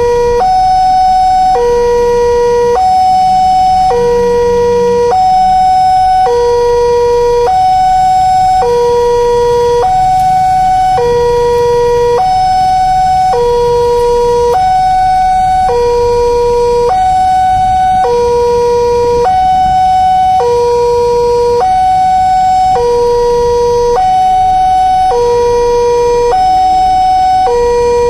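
Railway level-crossing warning alarm sounding while the red signal is lit: an electronic two-tone alarm alternating high and low, each tone about a second long, repeating without a break.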